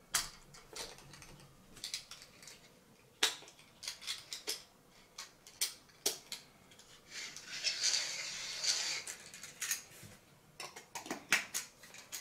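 Manual coffee grinder being handled: scattered sharp clicks and light knocks of its parts, with a longer scraping rattle between about seven and nine and a half seconds in.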